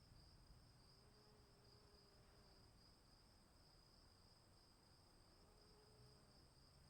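Very faint, steady chorus of crickets: a continuous high-pitched trill with a fainter, higher one above it.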